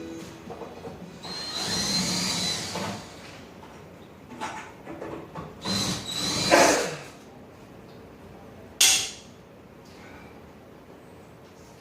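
Power drill running in two short bursts, a few seconds apart, with a steady high whine, as screws are driven out during disassembly. A short sharp knock follows near the end.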